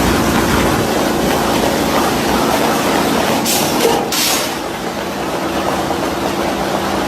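Rotary veneer lathe running steadily as it peels thin sheets from a turning log, a mechanical hum with a brief hiss around the middle.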